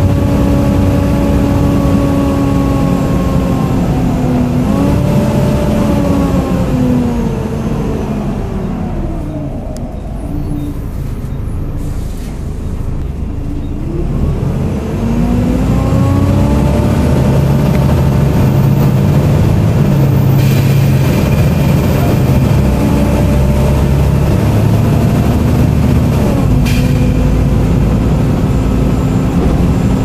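Volvo B7TL double-decker bus running, heard from the upper deck, with the loud vacuum-cleaner-like drivetrain whine known as a 'hoover'. The whine falls in pitch as the bus slows a few seconds in, goes quieter for a few seconds, then rises again as the bus pulls away and holds steady, with a brief dip near the end.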